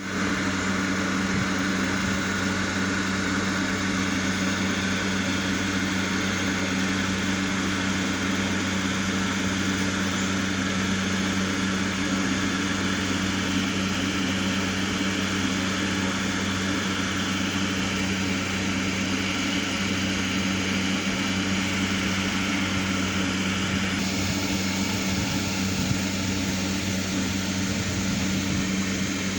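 Amplifier driving loudspeakers with a steady low hum and a broad hiss, no music playing; the hiss changes in character about 24 seconds in.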